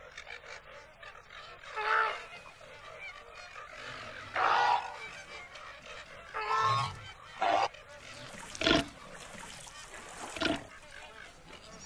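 Flamingos honking: goose-like calls, three of them about two seconds apart, then a few shorter, sharper squawks.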